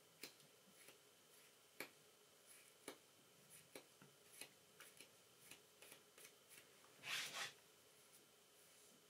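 Faint handling noise as fingers work a bunch of hair-wing material for a fly, brushing out fluff and pulling loose strands: scattered small clicks and ticks, with one short, louder rustle about seven seconds in.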